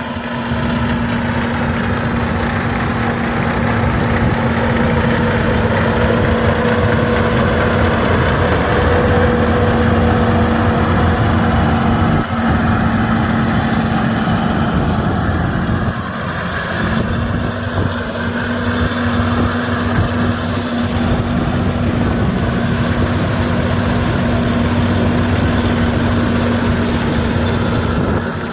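Kukje KC100 six-row combine harvester running, a loud steady machine drone with a constant low hum.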